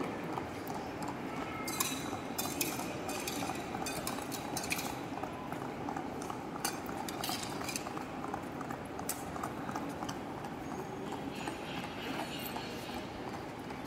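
Footsteps on a hard tiled floor, with scattered light clicks and clacks, most of them in the first half, over the steady hum of a large echoing hall.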